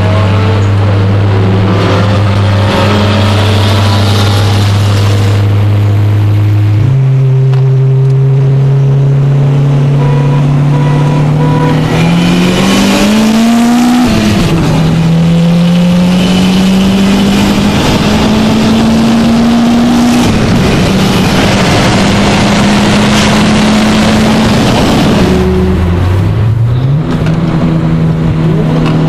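Big-turbo Audi A3's engine heard from inside the cabin during a hard run. It holds a steady note for several seconds, jumps up in pitch at a downshift, then revs climb and drop back with each gear change as the car accelerates.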